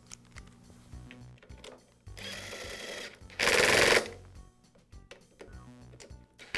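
Cordless screwdriver driving in a screw to fasten a plastic primer base to a small engine's carburetor. The motor runs softly for about a second from two seconds in, then gives a short, loud burst about three and a half seconds in. Light clicks of the screw and bit being handled come before.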